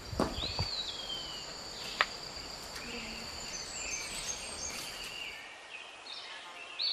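Tropical forest ambience: a steady high insect buzz with a few bird whistles, one of them falling in pitch near the start. There are a couple of soft thumps at the beginning and a single sharp click about two seconds in.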